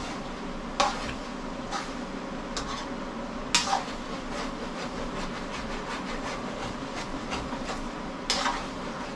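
A spatula scraping and knocking against a wok while stirring pork as it sautés, with about five sharp clacks over a steady sizzle. The meat has begun to stick to the pan.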